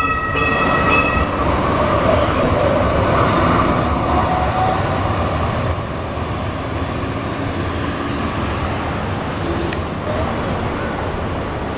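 Light rail train pulling away past the platform. A bell dings in quick repeats for about the first second, then the cars rumble by with a faint motor whine. The rumble eases after about six seconds as the train moves off, leaving steady city street noise.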